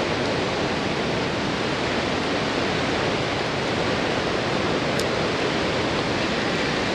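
A waterfall's water pouring steadily into the pool below: an even, unbroken rushing noise.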